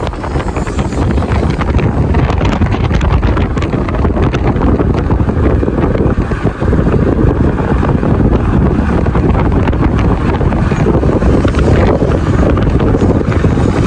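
Wind buffeting the microphone while moving along in the open air: a loud, steady rushing rumble, briefly dipping about six and a half seconds in.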